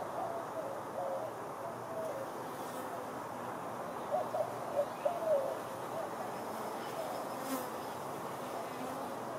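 Honeybees buzzing in flight around the hive entrance, a steady hum with a few louder, wavering swells about four to five and a half seconds in.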